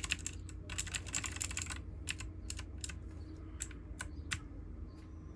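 Keys of a T8 RGB mechanical keyboard being typed on: a fast run of clicks through the first two seconds, then single key presses spaced apart, thinning out towards the end.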